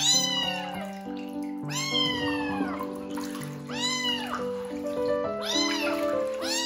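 Young kitten meowing repeatedly while being bathed: about five high cries that rise and fall in pitch, one every second and a half to two seconds, over background music.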